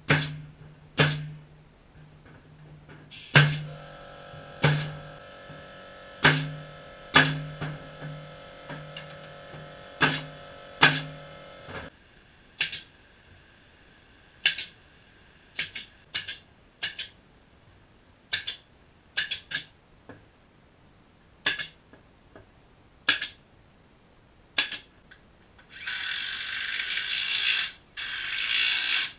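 Repeated sharp knocks from tool work on the timber coop frame, a couple of dozen at uneven intervals, the first dozen each with a short low ring over a steady hum. Near the end comes about three seconds of rattling mechanical whirring, like a power tool driving screws.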